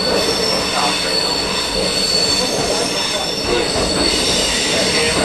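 Heritage railcar running along the track, heard inside the passenger saloon: a steady rumble of wheels and running gear with a thin, steady high-pitched whine over it.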